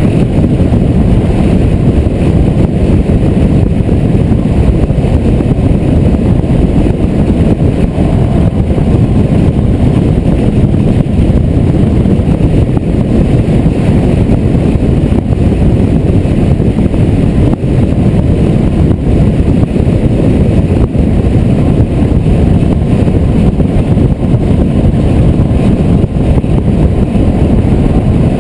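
Car driving at highway speed: a steady, loud rumble of wind and road noise on a camera mounted outside on the hood.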